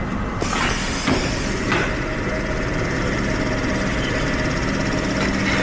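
Steady workshop machine noise with a faint hiss, broken by a few light knocks in the first two seconds.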